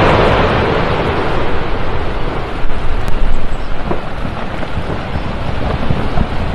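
Explosive volcanic eruption: a continuous loud rushing noise from the ash column blasting out of the crater, heavy in the low end, easing slightly after the first second. Wind buffets the microphone.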